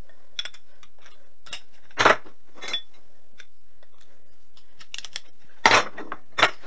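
Metal enclosure-frame tubes clinking and knocking as they are fitted together end to end and laid down on a wooden workbench. The clinks are scattered and sharp, the loudest about two seconds in and twice near the end.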